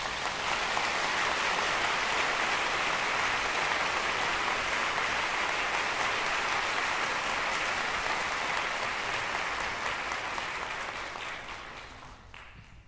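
Applause: a dense, steady clapping that fades out near the end.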